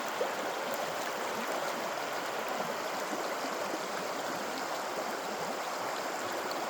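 River water rushing and burbling steadily over rocks.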